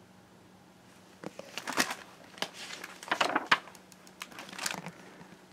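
Paper rustling and crinkling as a picture-book page is turned and the book is handled, with a few sharp clicks in among the rustles, from about a second in until near the end.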